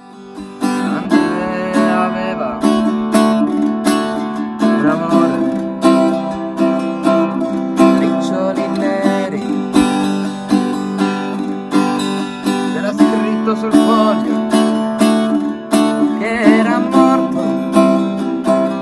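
Solo acoustic guitar music, plucked and strummed, fading in at the start.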